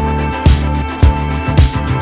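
Background music with a steady beat, about two beats a second, under sustained melodic notes.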